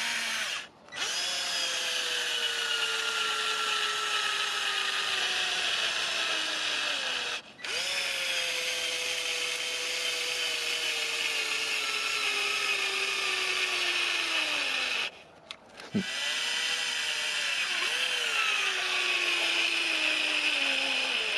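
AEG BS 12 C2 12-volt cordless drill driver driving lag screws into a log. The motor and gearbox whine runs three times with short breaks, and each run slides down in pitch as the screw sinks deeper and the load rises.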